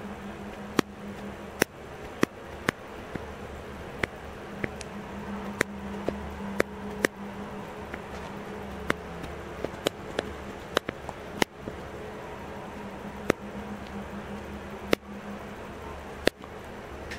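Camera shutter-speed and ISO dial wheels being turned, about twenty sharp detent clicks at irregular intervals, some in quick pairs, each click one step of exposure change, over a steady low hum.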